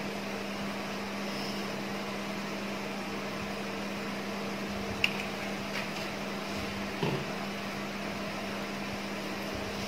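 Steady mechanical hum of a running fan-type appliance, with one light click about five seconds in and a faint knock about two seconds later.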